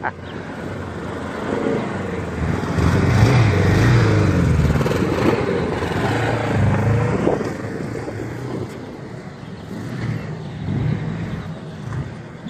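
Pickup truck towing a boat trailer, its engine running as it pulls along the street, growing louder from about two seconds in with the pitch rising and falling, then easing off after about eight seconds.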